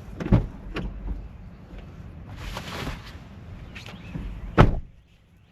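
A jacket being grabbed from a car: a few knocks and a stretch of rustling, then a car door shut with one loud thump about four and a half seconds in.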